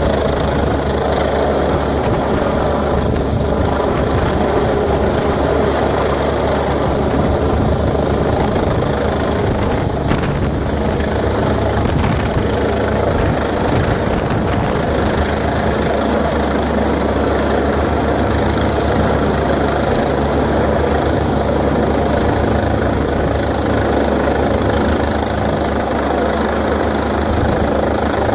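AgustaWestland A109 military helicopter flying low overhead, a steady beat of its four-blade main rotor over the whine of its turbine engines, holding an even loudness.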